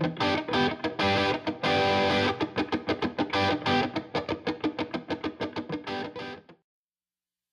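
Background music: a rhythmic, distorted electric guitar riff that fades out and stops about six and a half seconds in, leaving silence.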